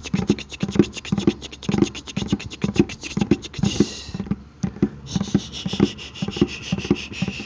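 Fast rhythmic scratching and tapping on a bucket mixed with mouth sounds, with a low thud about twice a second and a short hiss a little before the middle.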